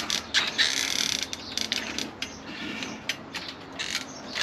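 Irregular clicking and ratcheting from a hand tool being worked, with a few short scraping sounds between the clicks.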